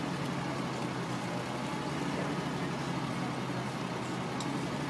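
Steady hum of idling vehicle engines mixed with street traffic noise.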